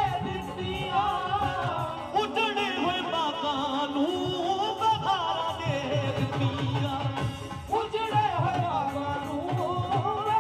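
Live Punjabi devotional song played loud through a PA: a heavily ornamented lead melody over keyboards, with dhol and tabla keeping a steady beat underneath.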